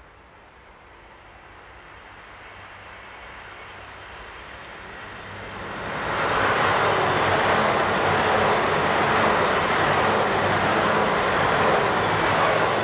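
JR Hokkaido tilting limited-express diesel multiple unit passing at speed: its engines and wheels on the rails grow steadily louder as it approaches. The sound becomes loud and steady about halfway through as the cars run close by.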